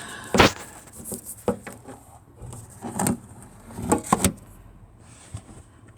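Handling knocks and clunks: one sharp knock about half a second in, then a few softer clunks and rattles around three to four seconds in.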